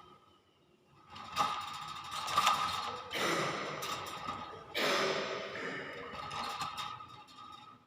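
Hill myna making a series of harsh, noisy sounds, two longer ones starting about three and five seconds in.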